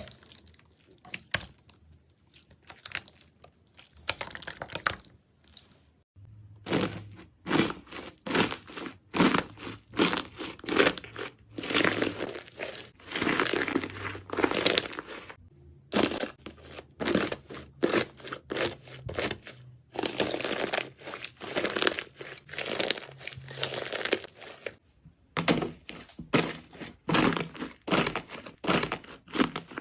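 Jelly slime being squeezed and pressed by hand, giving crackling, clicking pops. Sparse clicks at first, then nearly continuous crackling from about six seconds in, with a couple of short pauses.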